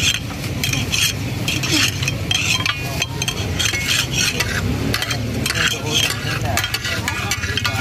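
Dal frying in oil on a large flat tawa griddle, sizzling steadily, while metal spatulas scrape and clatter across the griddle in quick, irregular strokes.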